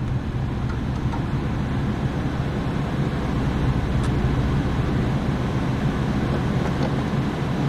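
Steady low rumble with an even hum underneath, no strokes or rhythm.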